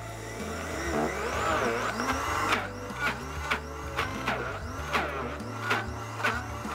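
Optimum 9200A high-speed blender running, its blades churning frozen oat-milk cubes while the tamper is pushed down into the jar. The motor's whine wavers up and down as the load shifts, settling into surges about twice a second in the second half.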